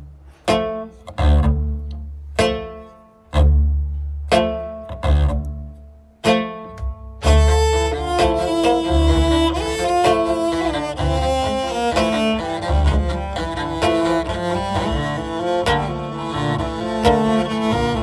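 Cello played live: short, separate low notes, each left to fade, about once a second, then from about seven seconds in a full, sustained bowed passage with several notes sounding together.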